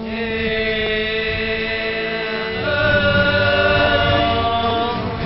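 Voices chanting a Thai royal barge boat song in long held notes, shifting to a new, louder note about two and a half seconds in.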